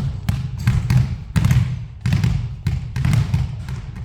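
Basketball being dribbled in a ball-handling drill, about three sharp bounces a second in an uneven rhythm, over a steady low hum.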